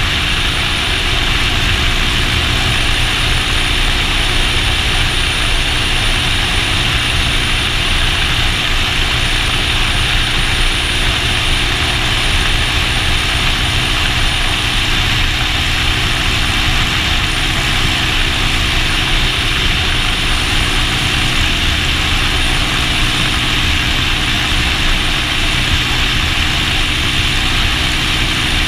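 Motorcycle engine running at a steady cruise, its pitch holding nearly constant, under a loud, even rush of noise.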